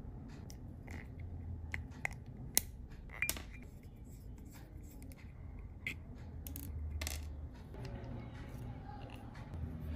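Small, sharp metallic clicks and ticks at irregular intervals from handling a metal eyeglass frame and fitting a nose pad with a precision screwdriver: the screwdriver tip and tiny screw tapping on the pad arm. A low steady hum lies underneath.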